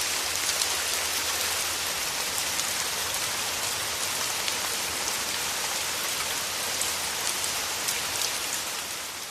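Steady rain falling, with the fine patter of individual drops, fading out near the end.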